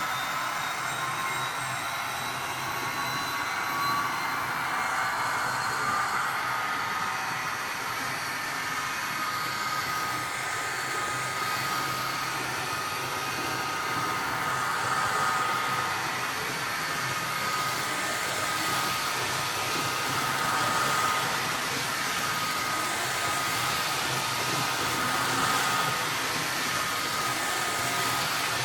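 N scale model locomotive running around tight KATO Unitrack curves: a steady small-motor whine over the rolling noise of its wheels on the track.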